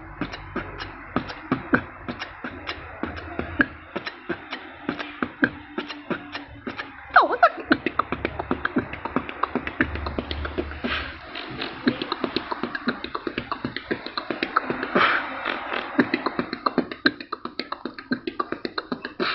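A person beatboxing: rapid mouth clicks, pops and hisses, several a second, with stretches of low hummed bass under the percussion.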